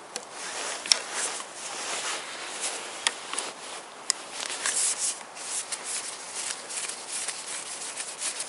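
Socket wrench being worked to loosen an ignition coil hold-down bolt on a Toyota VVT-i engine's valve cover: continuous scratchy rubbing, with a few sharp clicks scattered through it.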